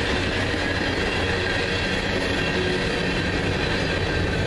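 Freight cars of a CSX manifest train rolling past close by: a steady noise of steel wheels on rail, with a faint high ringing tone.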